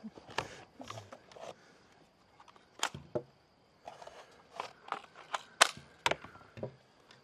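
Scattered clicks and knocks from a Steambow M10 crossbow being handled and turned over in the hands, the sharpest knock about five and a half seconds in.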